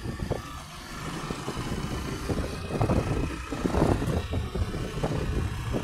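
Motorcycle running along the street, heard from on board, with an uneven low rumble of engine, road and wind noise.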